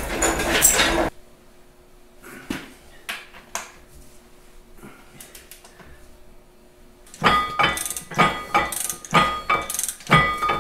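Metal clattering and knocking from hand work on a Farmall MD tractor's cast-iron transmission case and rear axle housing. There is a loud clatter for about the first second, then a few faint clicks. In the last three seconds comes a run of loud metal strikes that ring, about two a second.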